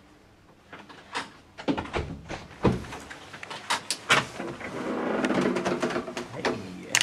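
Clicks and knocks of a hotel room door being unlocked and opened, with thick jacket fabric rustling close to the microphone through the second half.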